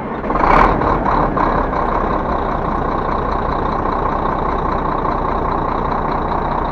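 Old Volvo truck's diesel engine catching with a brief surge about half a second in, then running steadily at idle. This is its first run after new bearing shells were fitted and fresh oil was poured in.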